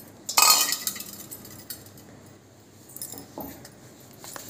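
Sattu (roasted gram flour) tipped by hand into a steel bowl: a short rushing hiss about half a second in, then a few light clinks against the bowl.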